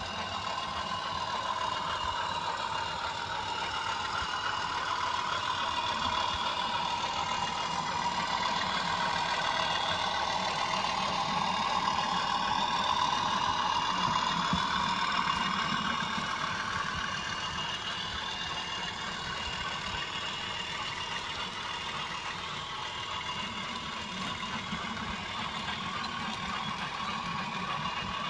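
Model railway diesel locomotive hauling a train of tank wagons past on the track: a steady mechanical running sound with tones that slowly rise and fall. It grows louder to a peak about halfway through as the train passes closest, then eases off.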